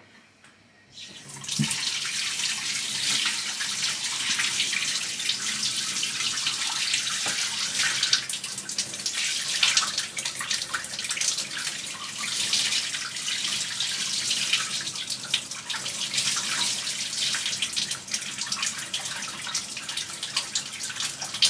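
Water running steadily from a kitchen tap, starting about a second and a half in after a brief quiet moment.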